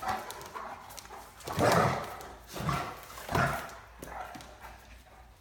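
Great Danes giving short vocal bursts while play-wrestling, three loud ones close together in the middle.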